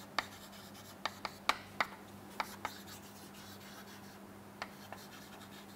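Chalk writing on a chalkboard: a run of sharp taps and short scratches as letters are stroked on, closely spaced for the first few seconds, then only a few near the end. A faint steady low hum lies underneath.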